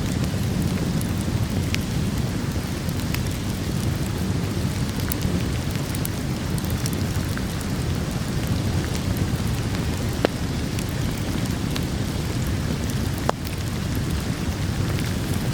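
Steady heavy rain with a deep, even rush, and scattered sharp crackles from a wood fire, with two louder pops about ten and thirteen seconds in.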